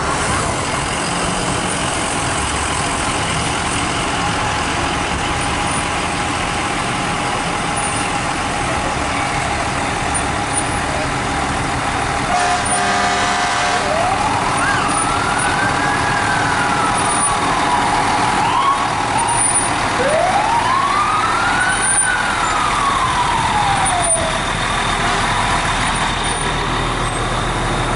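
Fire engine siren sounding two slow wails, each rising in pitch and then falling away, over the steady rumble of passing fire trucks' engines.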